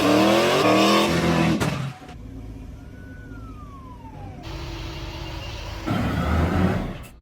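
Car engine revving hard, its pitch climbing for the first two seconds, then dropping to a quieter steady rumble with a single falling whine. It rises again to a second loud burst near the end and cuts off suddenly.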